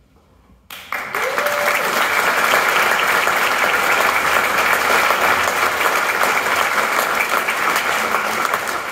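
Audience applauding: many people clapping, starting suddenly about a second in and running on steadily and loudly.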